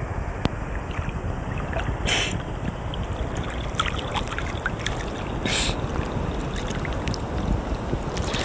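Seawater sloshing and lapping right against a camera held at the surface, over a steady low rumble, with many small splashes and drips. There are two brief hissing splashes, about two and five and a half seconds in.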